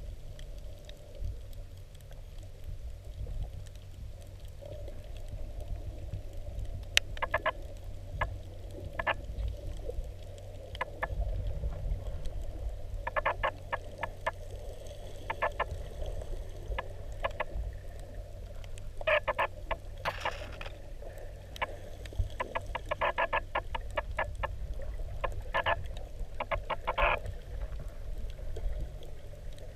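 Underwater sound: a steady low rumble of water moving against the camera, broken now and then by short trains of rapid clicks.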